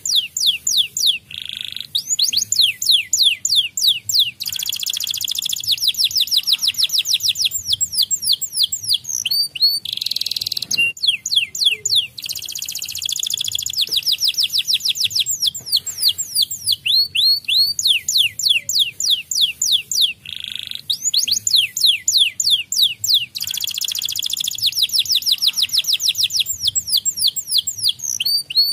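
White domestic canary singing: long trills of rapid, repeated downward-sweeping high notes, with several stretches where the notes run faster and denser into a rolling trill.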